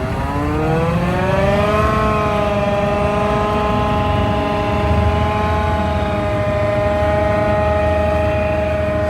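John Deere 8600i forage harvester running up to working speed: a rising whine over the first two seconds, then a steady high-pitched drone.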